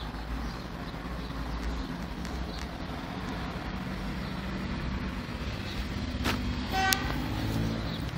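Steady background traffic rumble, with a short car-horn toot about seven seconds in.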